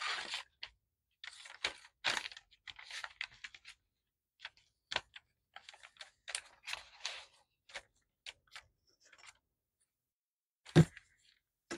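Crumpled brown kraft paper rustling and crinkling in short, scattered bursts as it is handled and smoothed flat by hand. A single louder knock comes near the end.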